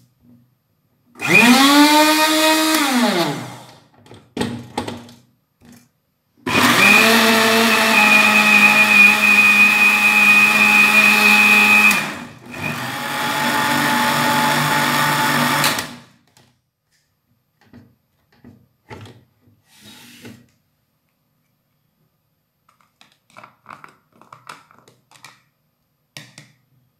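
Electric blender motor running, most likely blending strawberries for juice. It runs in three bursts: a short one that spins up and winds down, then a longer steady run of about five seconds, which drops briefly and picks up again for a few more seconds before stopping. Faint small clicks and knocks follow.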